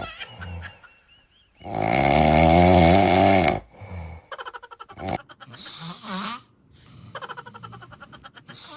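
Loud human snoring, several different snores one after another: a long wavering snore about two seconds in, then a fast fluttering rattle and shorter snorts.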